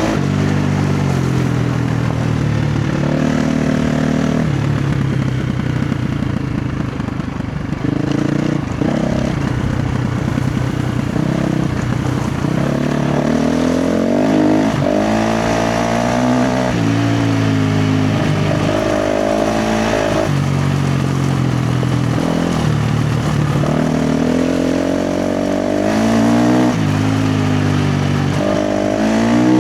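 KTM 350 XC-F dirt bike's single-cylinder four-stroke engine revving hard under load, its pitch climbing and dropping again and again as the throttle is opened and shut through the gears.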